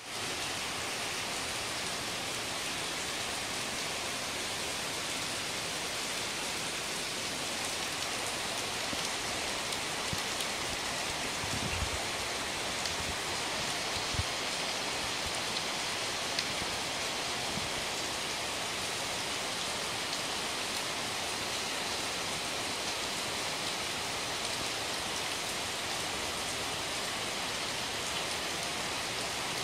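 Rain falling into standing water: a dense, steady hiss of drops, with a few soft low thumps around the middle.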